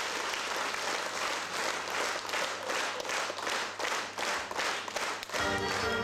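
Theatre audience applauding, the clapping falling into a steady rhythm of about three claps a second; near the end the orchestra starts playing again.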